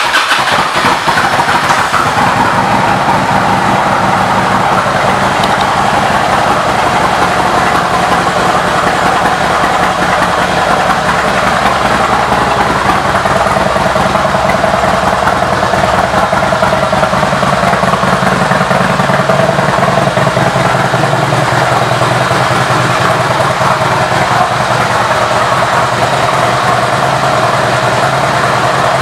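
2005 Harley-Davidson Ultra Classic's V-twin engine idling steadily and loudly through its Screaming Eagle aftermarket exhaust.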